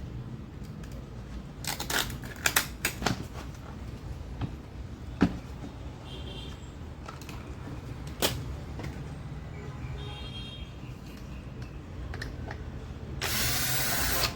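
Clicks and knocks of tools and parts being handled while a finishing sander is worked on, over a steady low hum. Near the end there is about a second of loud rushing noise.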